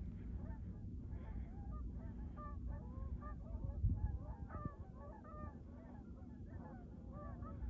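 A flock of geese honking continuously, many short overlapping calls, heard over a low rumble with a couple of soft thumps about four seconds in.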